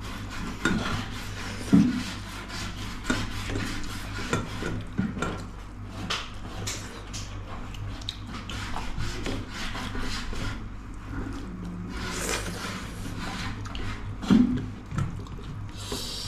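Eating at a table close to the microphone: irregular clinks and knocks of plates and cutlery with mouth sounds of eating, over a steady low electrical hum.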